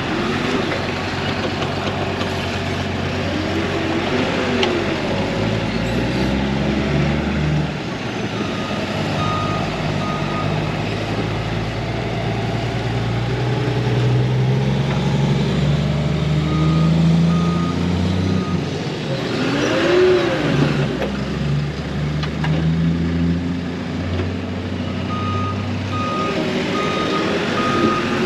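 Heavy vehicle engine running and changing speed, with a reversing alarm beeping in short runs about every eight seconds.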